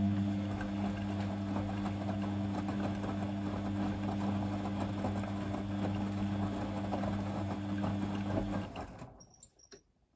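Beko D2 8101E washing machine's drum motor turning the drum with a steady hum while the wet laundry sloshes in the water, during the cool-down stage of its main wash. The motor winds down and stops about nine seconds in, followed by a few light clicks.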